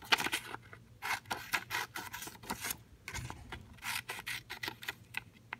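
Scissors cutting through construction paper: several quick runs of crisp snips with short pauses between them.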